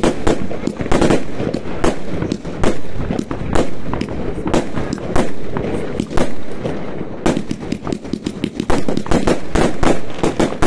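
Fireworks going off in a dense, unbroken run of sharp bangs and cracks, several a second, packed most tightly in the last few seconds.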